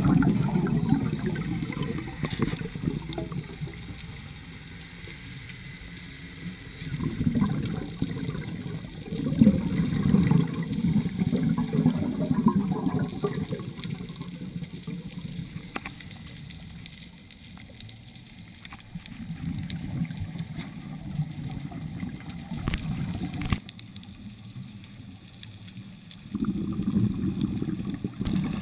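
Scuba diver's exhaled breath bubbling out of the regulator underwater, in long gurgling surges every several seconds with quieter pauses between breaths.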